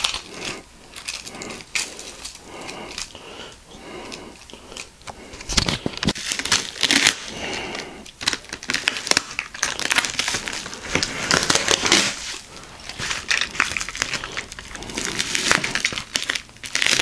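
Plastic bubble wrap crinkling and rustling as it is handled in irregular bursts inside a cardboard shipping box.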